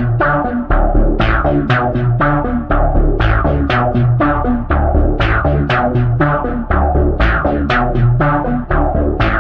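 Electronic dance music: synthesizer chords over a steady drum-machine beat of about two to three hits a second and a stepping bass line.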